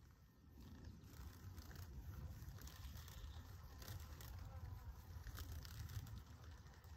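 Faint outdoor insect ambience: insects buzzing over a low steady rumble, with a few soft clicks.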